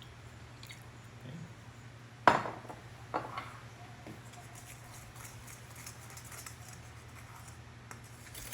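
A utensil clinking against a small bowl a few times while sauce is stirred, the loudest strike about two seconds in, then two lighter ones.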